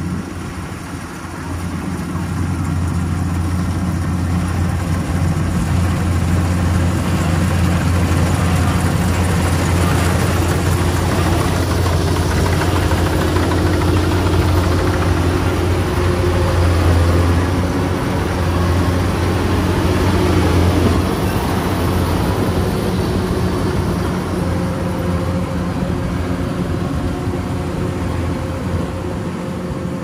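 Kubota DC-105X rice combine harvester's diesel engine running steadily under load as it harvests, a low hum with a broad mechanical noise over it. It grows louder over the first few seconds as the machine comes close, is loudest a little past the middle, then eases as it moves away.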